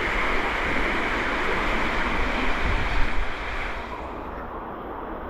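Steady rush of flowing water in a cave creek, with a knock about three seconds in. After the knock the rush turns quieter and duller.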